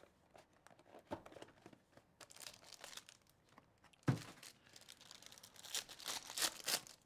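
Foil wrapper of a trading-card pack crinkling and being torn open, loudest near the end, with a single thump about four seconds in.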